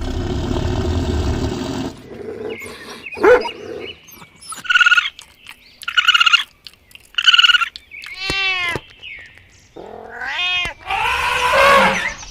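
A string of separate animal calls one after another, including cat meows. It opens with a low, rough sound for about two seconds, followed by three short, evenly spaced calls, then longer calls that fall in pitch.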